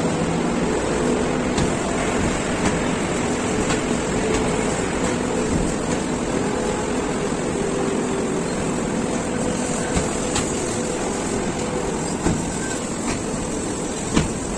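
Steady mechanical din of a cement-bag loading conveyor running, with a few short sharp knocks scattered through as bags come down the metal slide plate into the truck.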